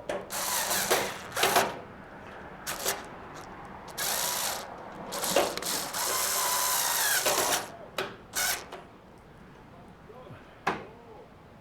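Cordless driver run in short bursts to drive a screw, with a longer run of about two seconds in the middle and a single click near the end.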